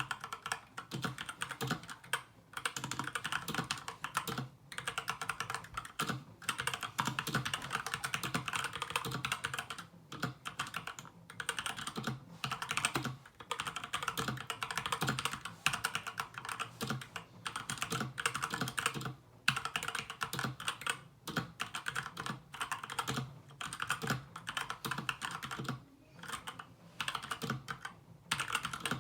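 Fast typing on an SK61 mechanical keyboard with lubed Gateron Brown tactile switches and pudding keycaps. The keystrokes come in dense runs, broken by short pauses every couple of seconds.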